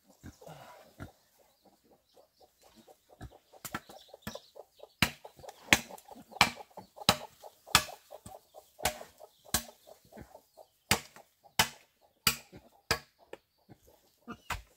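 Food being chopped on a board with a blade in steady, regular strokes, about one every two-thirds of a second, starting a few seconds in after a quieter stretch.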